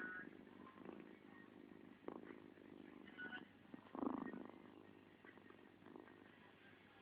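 A sleeping cat snoring faintly, a soft snore with each breath at irregular intervals, the loudest about four seconds in.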